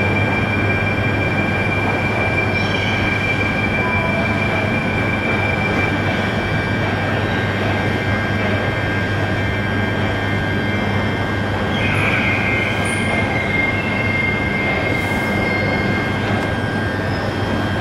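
Stansted Express electric train running, heard from inside the passenger carriage: a steady rumble with a hum and a thin, steady high whine.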